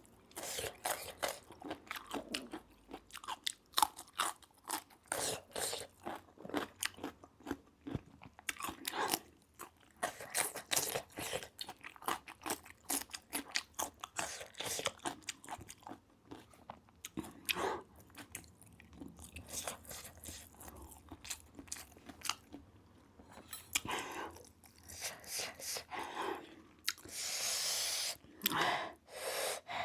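A person chewing and crunching food close to the microphone, mukbang style, with many irregular crisp bites and wet mouth sounds. Near the end there is a longer rushing sound.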